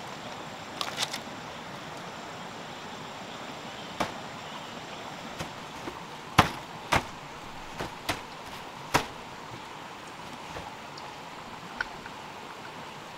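Hollow knocks of bamboo poles striking each other, about a dozen sharp clunks at uneven intervals with a quick cluster of three about a second in and the loudest near the middle, over a steady outdoor hiss.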